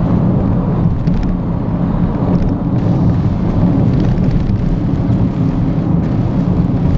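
Steady low rumble of road and tyre noise mixed with the engine of a Perodua Axia, heard inside the cabin at about 120 km/h on a rough road. A few light ticks sound through it.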